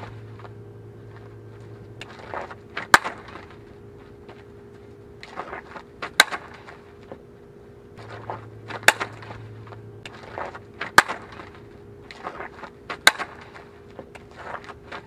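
Fastpitch softball bat striking tossed softballs in hard-slap swings: about five sharp cracks, roughly every two to three seconds, each preceded by quick scuffs of cleats on infield dirt from the running slap approach.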